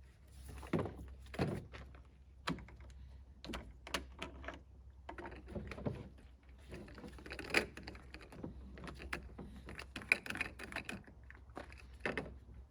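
Irregular clicks, taps and knocks of hard objects being handled, over a low steady hum.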